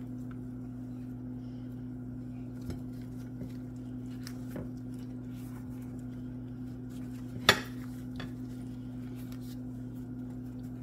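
Kitchen utensils tapping and clinking lightly against dishes, with one sharp clack about seven and a half seconds in, over a steady low hum.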